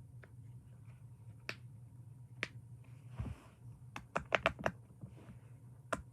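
A fidget toy being pressed by hand, giving scattered sharp clicks: two single clicks, then a quick run of about five, then one more near the end, over a faint steady low hum.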